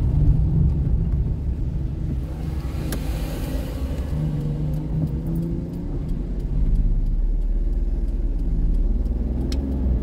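Car driving, heard from inside the cabin: steady low engine and road rumble, with a short swell of hiss about three seconds in.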